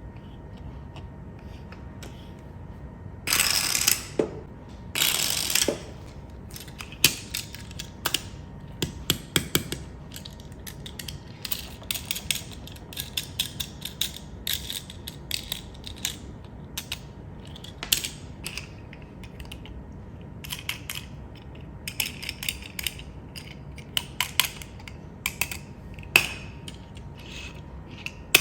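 Irregular clicking and rattling of small hard mechanical parts, with two short scraping rushes of about a second each a few seconds in.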